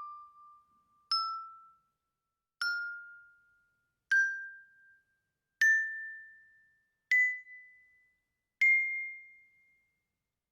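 Bell struck six times, about a second and a half apart, each note ringing out and fading, climbing step by step in pitch like a rising scale.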